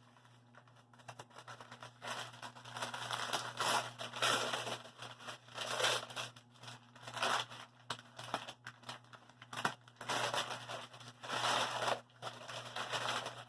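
Packaging being unwrapped: crinkling and tearing in uneven stretches, with a brief pause near the end.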